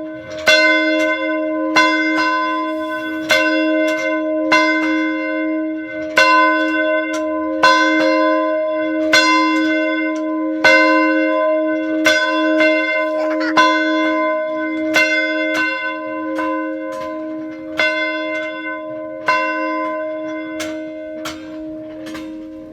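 A single church bell tolling steadily, struck about every one and a half seconds, its ring carrying on between strokes. It is rung as a call to prayer.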